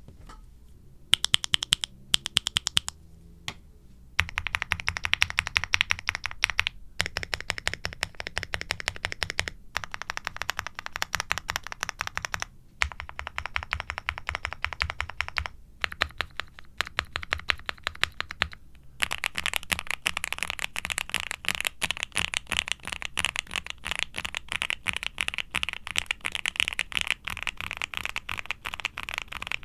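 Typing on a QwertyKeys QK65 aluminium mechanical keyboard with lightly lubed, full-POM Kailh Cream Pro linear switches on a polycarbonate plate, fully dampened with foam and silicone: a few separate key presses come first, then steady runs of keystrokes with short pauses, and the typing gets faster for the last third. The owner calls the sound somewhat thocky but a bit muddled and rattly.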